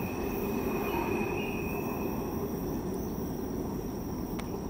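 Freight train rumbling on the rails as it moves away, its level slowly falling. A faint thin high tone over it stops about two seconds in.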